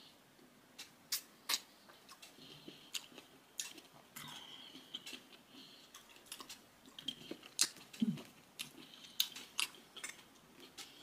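A person chewing and biting into a cherry tomato close to the microphone: wet mouth sounds with a scatter of sharp clicks.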